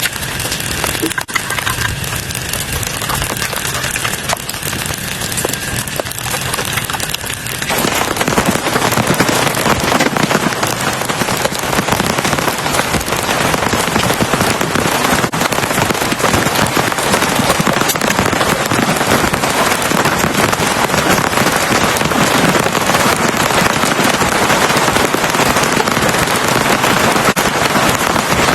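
Heavy rain falling as a dense, steady hiss, which becomes louder and fuller about eight seconds in.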